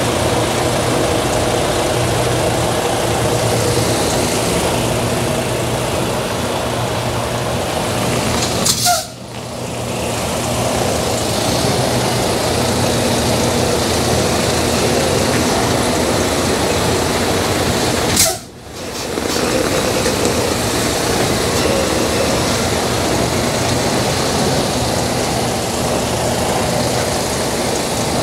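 Semi-truck diesel engine running steadily with a low hum. The sound drops out briefly twice, each time after a click, about nine and about eighteen seconds in.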